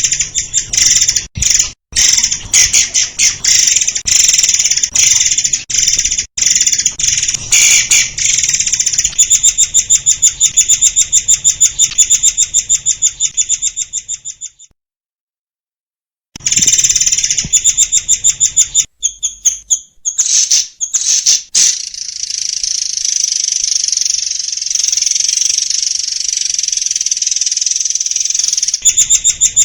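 Murai air bird singing in rapid, high-pitched bursts of repeated notes that run into a fast trill. The song stops for about two seconds near the middle, then resumes and settles into a long, unbroken buzzy trill.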